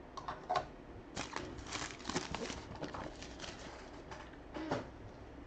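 Trading cards and their packaging being handled: irregular crinkling and rustling with a few sharp clicks, busiest in the middle.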